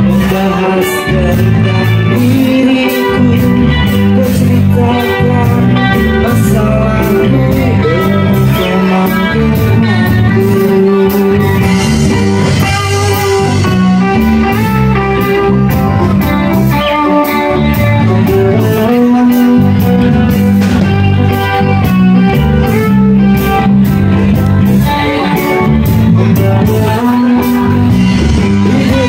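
Live band playing loud amplified music with electric guitars and bass over a steady beat.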